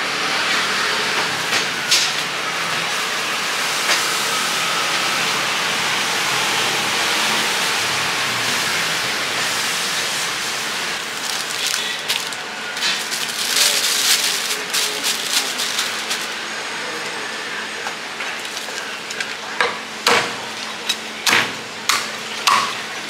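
A cleaver chopping a cooked duck on a wooden chopping block: a run of about six sharp strikes in the last few seconds. Before that there is a steady hiss with scattered clatter.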